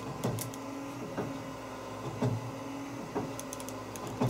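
Electric windshield wiper motor running on the truck's new wiring harness, a steady hum with a clunk about once a second as it cycles.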